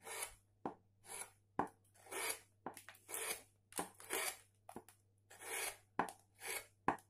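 Bent carving gouge paring short cuts across the grain of a wood relief, laying in fur texture: about one scraping cut a second, each with a sharp little click between strokes.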